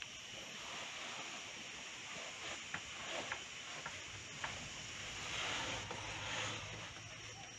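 Dry rice grains rustling and hissing as hands sweep and spread them across a round bamboo tray, with a few light clicks of grains and fingers against the tray. The rustling swells louder a little over halfway through.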